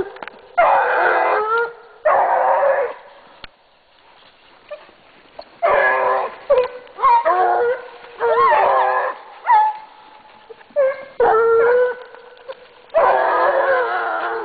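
Scent hounds giving tongue on a hare's trail while working up to it: repeated drawn-out baying cries of about a second each, with several voices overlapping at times.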